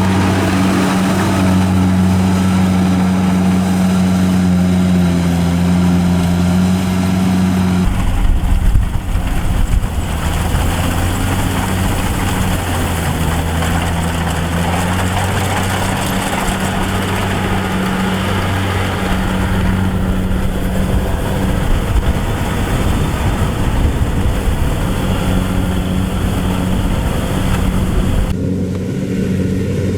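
Engine of a rice harvesting machine running steadily with a deep, even hum. The sound changes abruptly about eight seconds in and again near the end.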